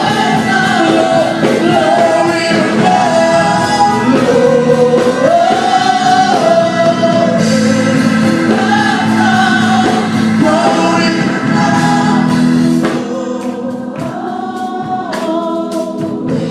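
Youth gospel praise team singing as a choir with instrumental accompaniment, the music getting quieter and sparser about 13 seconds in.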